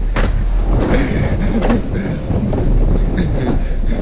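Alpine coaster cart running fast along its steel pipe rail: the wheels rumble and rattle steadily along the track.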